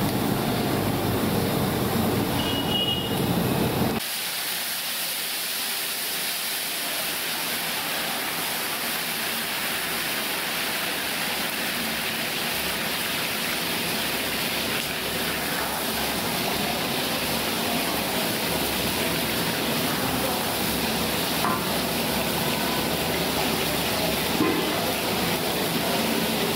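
Hot oil sizzling and bubbling in an iron kadai as eggplants deep-fry over a gas burner, a steady hiss. The first four seconds instead hold a low rumble that stops abruptly.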